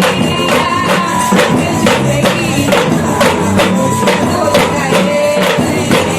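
A worship band playing music with a steady, even beat of about three strokes a second.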